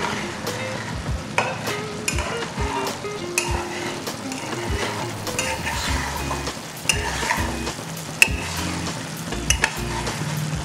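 Mutton pieces and masala sizzling in ghee in a kadai over high flame, stirred constantly with a metal spoon. The spoon scrapes and clicks against the pan, with a sharp knock about eight seconds in. The stirring keeps the roast from catching on the bottom as it dries.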